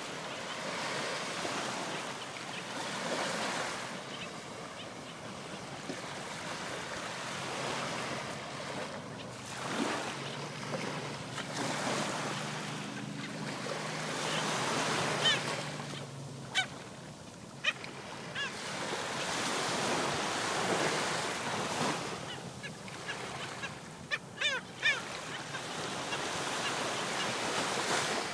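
Small waves breaking and washing up a sandy beach, the wash swelling and fading every few seconds. A few short, high-pitched calls cut through about halfway and again near the end.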